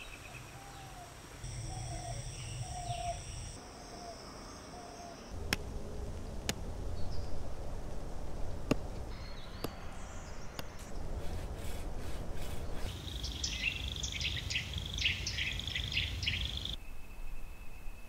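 Outdoor nature ambience edited in abrupt cuts: a row of short, evenly spaced low chirps in the first five seconds, a few sharp clicks around the middle, and a burst of brisk, high bird chirping from about two-thirds of the way in, over steady high tones and a low rumble.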